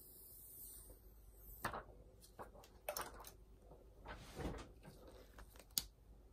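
Clear protective plastic film being peeled off the glass back of a Samsung Galaxy S10 Plus by gloved hands: a few quiet crackles and rustles of the film, with a sharp click near the end.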